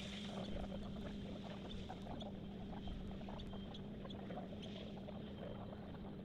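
Faint low rumble and a steady low hum from steam locomotive 5917 running slowly away along the track.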